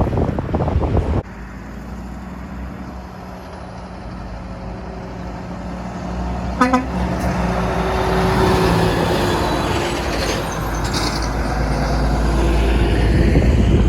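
Wind noise on the microphone, cut off about a second in, then a semi truck approaching with a steady low engine hum, its engine and road noise building to a peak near the end.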